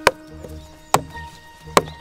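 Wooden wedges being struck into a log to split it: three sharp, evenly spaced knocks about a second apart, with background music.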